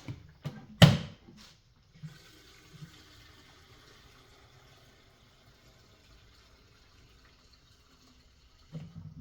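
A few clicks and one sharp knock, then gasoline poured steadily into the empty fuel tank of an MTD snowblower for about seven seconds.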